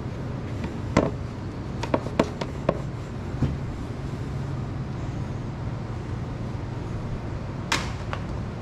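A few light knocks as an old rectangular cab air filter is handled, then a single clatter near the end as it is thrown down onto the concrete floor. A steady low hum runs underneath.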